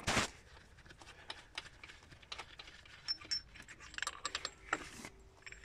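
A short knock right at the start, then scattered light metallic clicks and clinks of hand tools and small steel engine parts being handled, with a few brief metallic rings.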